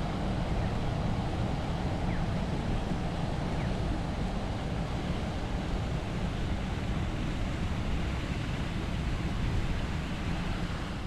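Steady outdoor city-park ambience: an even low rumble of distant city traffic mixed with wind.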